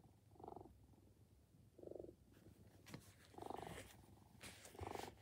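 The purr mechanism from a MeowEver robotic cat cushion, fitted inside a plush robot cat, plays a soft electronic cat purr. The purr comes in short pulses about every second and a half, four in all, with faint rustles of hands on the plush fur between them.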